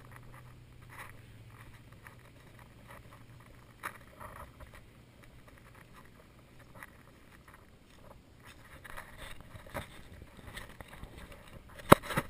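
Footsteps on a sandy dirt trail, with irregular rustling and handling knocks, and one sharp, loud knock near the end.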